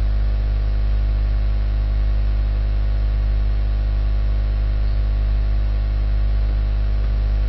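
Steady low electrical hum with a buzz of evenly spaced overtones, unchanging throughout: background noise on the recording line.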